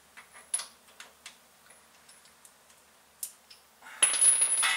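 Scattered faint metallic ticks and clinks of hand tools at the drain pan under a differential being drained, then a louder metallic clatter and scrape about four seconds in.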